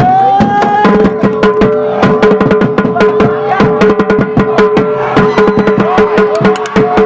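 Music with a fast, busy drum beat under a long held note and short sliding melodic notes.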